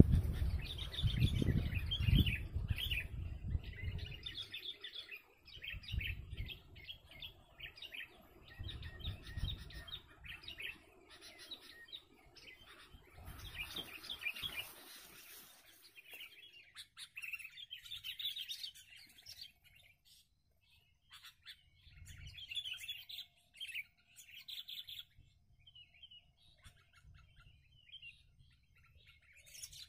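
Sooty-headed bulbuls (kutilang) chirping and calling over and over: quick runs of chirps through the first half, more scattered calls later. A low rumble on the microphone in the first few seconds is the loudest sound.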